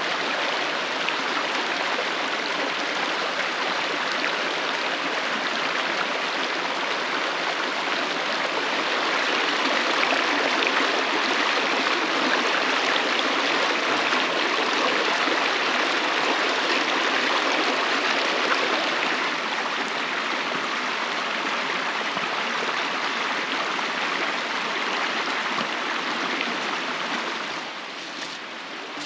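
Shallow rocky creek flowing over stones: a steady rush of running water, a little louder through the middle and quieter near the end.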